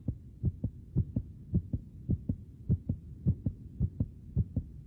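Heartbeat sound effect: a steady lub-dub thumping of about two beats a second, each strong low thump followed closely by a weaker one.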